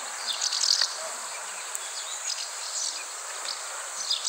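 Steady outdoor background hiss with scattered short, high chirps of small birds.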